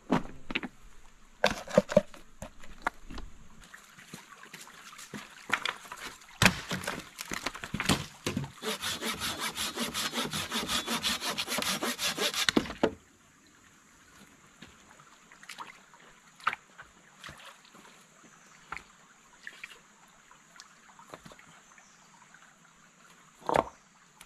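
Hand saw cutting through a branch in rapid, even strokes for about four seconds, stopping abruptly. Scattered knocks of stones and wood being handled come before it, and a single louder knock comes near the end.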